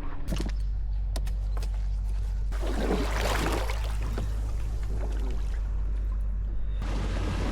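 Water splashing and trickling against a kayak's hull as it moves, loudest about three seconds in, over a steady low rumble.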